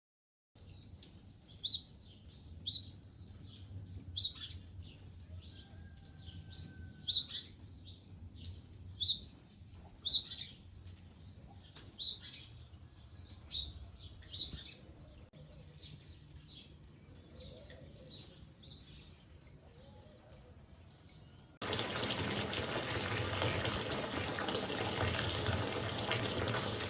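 A bird chirping repeatedly, short sharp calls about once a second. Near the end, water starts running suddenly and steadily, as from a tap.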